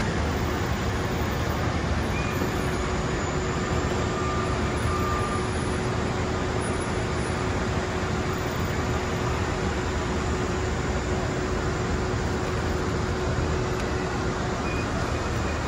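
Steady city street traffic noise, with a faint steady hum running through it that stops near the end.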